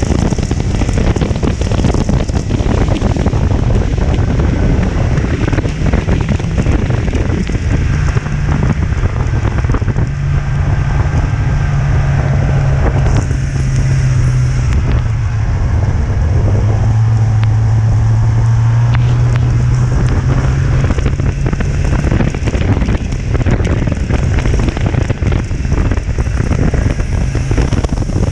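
Snowmobile engine running steadily while riding along the trail, its note stepping up and down with the throttle and dropping lower for a few seconds past the middle. Heavy wind rush on the microphone throughout.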